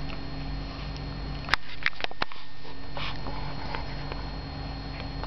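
Pekingese dog sniffing and chewing at cloth, with a sharp click about one and a half seconds in and a few more soon after.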